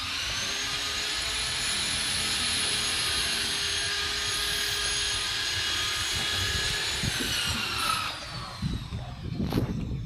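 A power tool's electric motor running steadily at high speed, a steady whine over a hiss, then winding down with falling pitch about seven seconds in. A few irregular knocks follow near the end.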